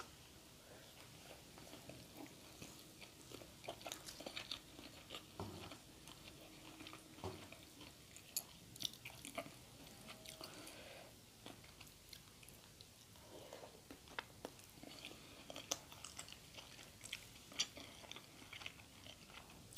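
A person chewing and biting food, faint: scattered small wet mouth clicks with occasional soft crunches.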